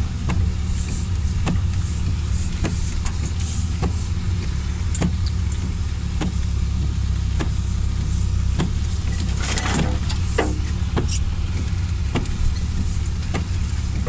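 Lada Niva engine running steadily at low speed, heard from inside the cabin as it crawls along a rough off-road track. Sharp clicks come about twice a second, with a brief rush of noise a little before ten seconds.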